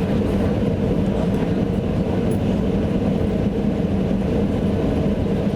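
Airliner cabin noise: the steady, loud engine and airflow rumble of a passenger jet heard from inside the cabin, with a low drone and no changes in level.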